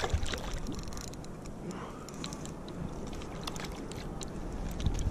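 Hooked whitefish splashing and thrashing at the water's surface as it is reeled in, a run of irregular small splashes and clicks.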